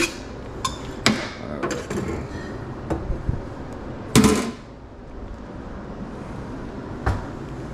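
Stainless steel lids of a hot dog steam table clanking as they are handled, with a utensil set down on the metal: several sharp clicks in the first three seconds, a louder clank about four seconds in, and one more near the end.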